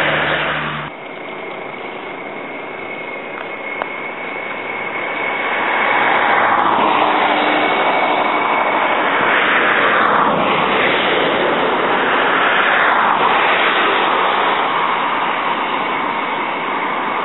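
Road traffic passing close by: a loud rush of several vehicles going past one after another, each swelling and fading.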